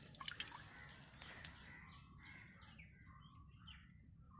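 Crows cawing faintly, several calls from about halfway through, with a few drips of water in the first second and a half as the netted fish are lifted out.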